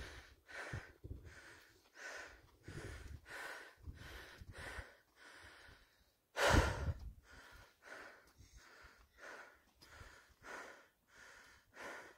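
A person breathing hard and rhythmically, close to the microphone, while climbing a steep mountain path on foot: quick breaths in and out, about two a second, with one much louder blast about halfway through.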